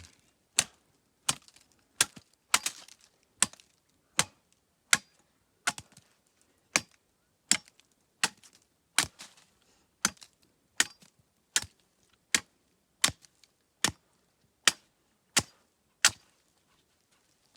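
Steady, repeated chopping: a blade striking wood about once every three-quarters of a second, some twenty strokes, stopping shortly before the end.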